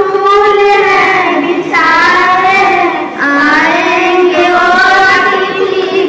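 A single high voice singing a slow melody in long held notes that slide in pitch, breaking briefly twice.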